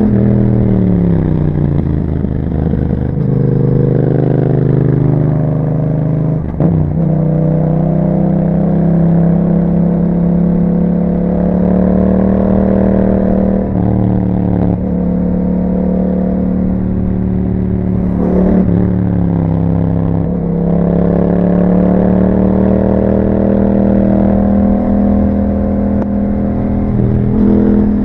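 2021 Yamaha MT-07's 689 cc parallel-twin engine running through an Akrapovic exhaust while riding. The revs fall at the start, then hold fairly steady with several brief drops and rises in pitch as the bike changes speed.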